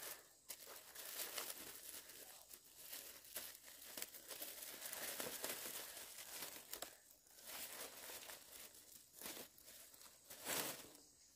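A thin plastic bag crinkling and rustling irregularly as it is handled, pressed shut and tied with a strip.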